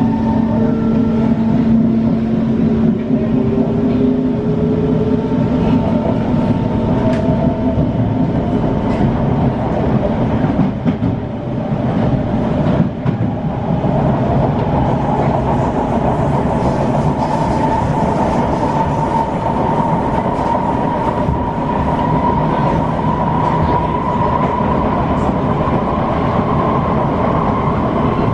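SMRT C151 metro train heard from inside the carriage as it pulls away from a station, with a steady rumble of wheels on rail. Electric traction motors whine, rising in pitch as the train gathers speed, and there are a few sharp clicks. In the second half a higher whine rises slowly as the train runs on at speed.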